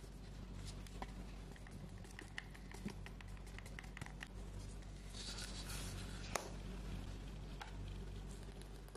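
Faint tapping, scratching and small clicks of fingers handling a cardboard eyeshadow palette case, with a brief rustle and a sharper click a little past the middle, over a low steady hum.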